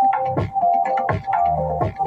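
Electronic music with a steady beat, a synth melody and bass.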